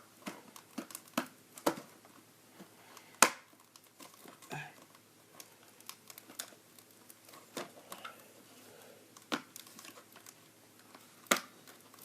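Hard plastic toy playset pieces being handled and pushed together: scattered sharp clicks and knocks about a second or two apart, with light rustling between them.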